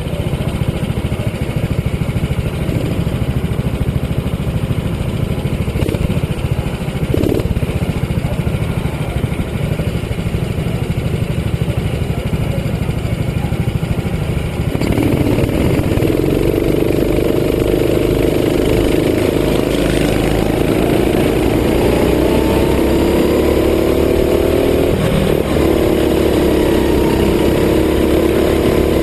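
Go-kart engine running as the kart drives around the track, with a low, rough rumble. About halfway in, a clear engine note takes over, rising and falling in pitch with the throttle.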